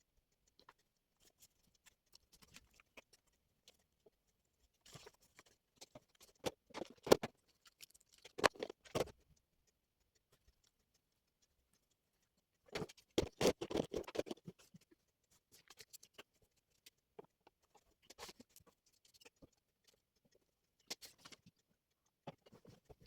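Scattered small clicks and rustling of objects being handled, coming in short clusters with quiet gaps. The busiest stretches are about six to nine seconds in and again around thirteen to fourteen seconds.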